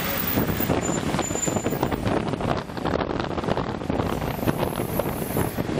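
Road traffic heard from a moving vehicle: a steady rush of engine and tyre noise, with wind on the microphone.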